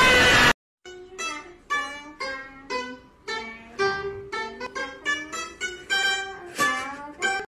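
A loud burst of noise that cuts off half a second in, then a ruan, a round-bodied Chinese lute, plucked in single notes, about two or three a second, each ringing and fading.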